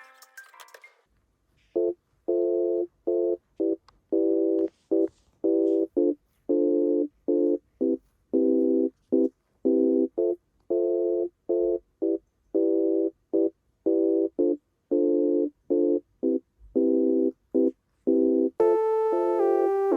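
A steady electronic beep tone at one pitch, switching on and off in a long string of irregular pulses of different lengths with silence between. Synth music comes in near the end.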